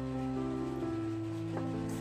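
Instrumental background music: held notes changing every half second or so over a steady bass line.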